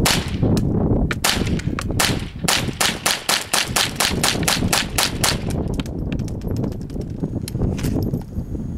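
ATI GSG-5 .22 LR semi-automatic rifle firing: a few spaced shots, then a fast string of shots about five a second, then a few fainter cracks. Its suppressor is a fake, so the reports are unmuffled. Wind rumbles on the microphone throughout.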